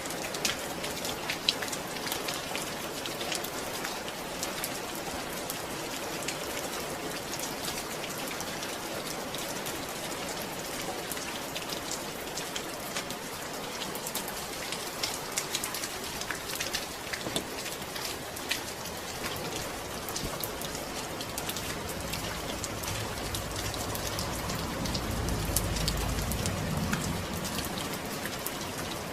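Steady rain, with single drops clicking sharply through the hiss. Late on, a low rumble swells up and fades away beneath it.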